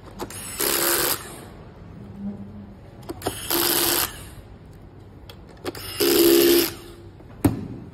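Electric screwdriver running in three short bursts of about half a second each, undoing the screws in the underside of a plastic projector case. A sharp click near the end.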